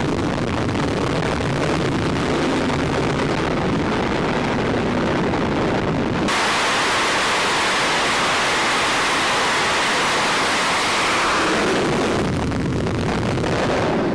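Steady wind and low rumble across a carrier flight deck. About six seconds in, a sudden cut brings in the loud, hissing roar of a twin-engine F/A-18-type jet at full power on the catapult. Near the end the roar thins out as the jet is launched and pulls away, and the low rumble returns.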